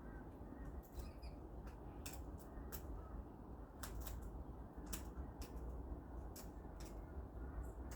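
Cockatoos eating: irregular sharp clicks and cracks of beaks working at food, a dozen or so scattered through, over a faint low rumble.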